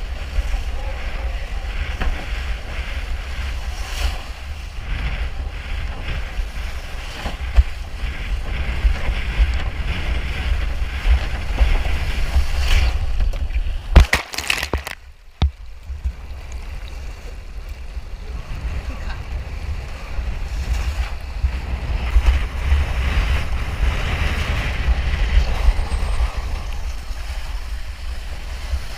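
Strong gale wind buffeting the microphone in a steady low rumble, with splashing water and waves, as on a windsurf board in typhoon winds. About halfway through there is a sharp knock, followed by a second of near quiet before the wind noise returns.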